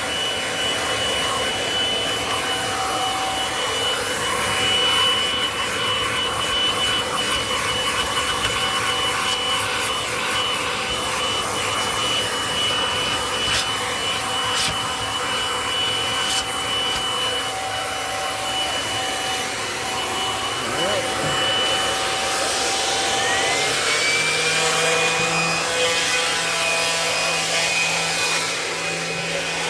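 Kirby Avalir vacuum running in hose mode, its motor whining steadily while a rotating brush attachment scrubs and rubs against the cat tree's carpet. About three-quarters of the way in, the whine changes: a new tone rises in pitch and then holds steady.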